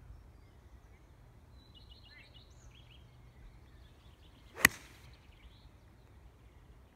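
Golf iron striking a teed ball: a brief swish of the downswing, then one sharp, loud click a little past halfway through.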